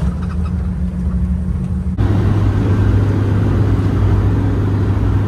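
Bus engine and road noise heard from inside the cabin, a steady low hum. About two seconds in it changes abruptly to a louder, deeper hum with more road noise.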